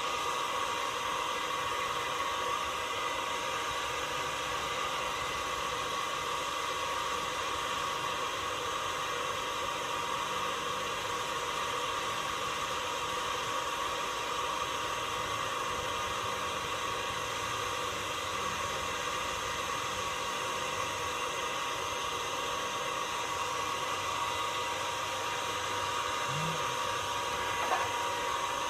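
A steady machine whir and hiss, like a motor or fan running at a constant speed, with a fixed hum in it that does not change. There is one brief tap near the end.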